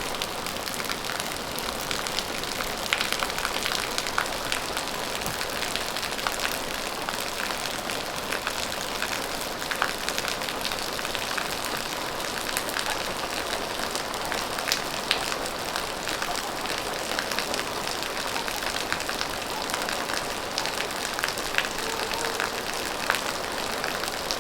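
Steady rain falling, with a constant hiss and many close individual drops ticking on a surface.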